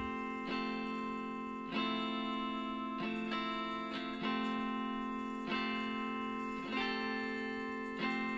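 Gentle background music: slow plucked chords, a new one struck about every second or so and left to ring.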